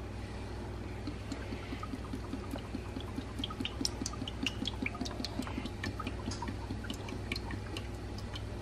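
Cooking oil poured from a plastic bottle into a non-stick frying pan: a quick, uneven run of small glugs and splashes over a steady low hum.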